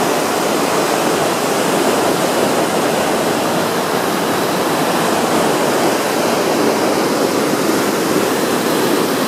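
Whitewater pouring over a rocky waterfall and rapids: a loud, steady rush of water.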